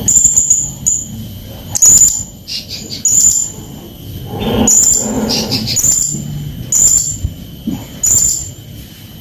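Blue-crowned hanging parrot (srindit) calling: a string of short, sharp, very high chirps about once a second, with a few lower, noisier notes mixed in.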